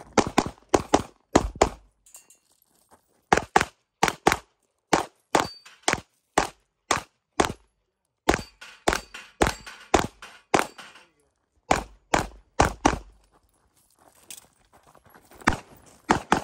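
Staccato P pistol fired rapidly in a USPSA stage run: sharp gunshots mostly in quick pairs, in strings broken by pauses of one to two seconds while the shooter moves between positions. There is a longer pause of about two seconds near the end before the firing resumes.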